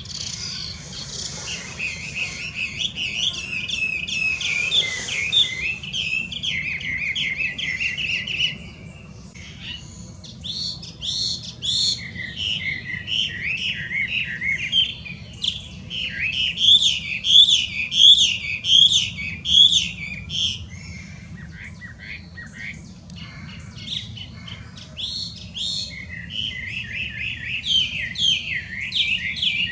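Chinese hwamei singing: loud phrases of fast, repeated whistled notes that swoop up and down, with short pauses between phrases.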